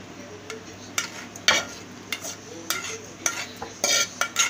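A metal spoon scraping and clinking against a steel bowl as ground boiled bottle gourd paste is scraped out into yogurt, with wet squelching of the paste. The strokes are short and irregular, about eight of them, coming faster in the last second.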